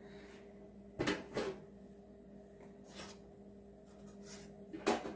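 Metal clicks and clatters from a deep fryer's wire-mesh baskets and their handles being handled and fitted: two sharp knocks about a second in, a few lighter ones later, and the loudest near the end.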